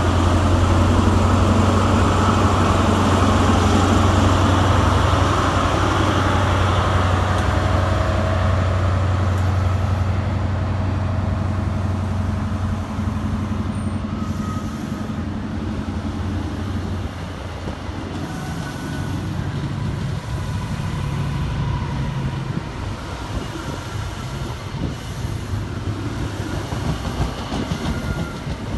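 Class 43 HST power car's MTU V16 diesel engine pulling away with a steady deep drone that fades after about twelve seconds. The Mark 3 coaches then roll past with a rumble and clatter of wheels on the track. Near the end the deep engine drone picks up again.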